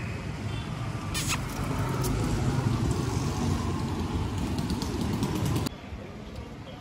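Street traffic noise: a steady low rumble of passing vehicles that swells about a second in and cuts off suddenly shortly before the end.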